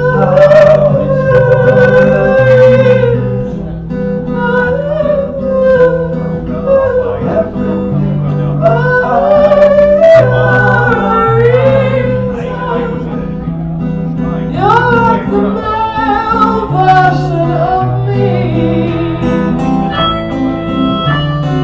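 Live band music: a wavering melody sung without words over guitar and a stepping bass line, with light percussion.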